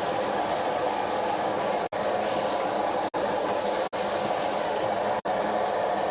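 Steady frying noise from a wok over a gas burner, an even hiss and rush, broken by four very brief drops to silence.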